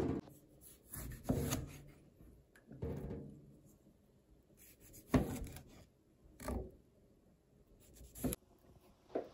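A kitchen knife cutting tomato halves into wedges on a cutting board: about six separate cuts a second or two apart, each a short slice ending in a soft knock of the blade on the board.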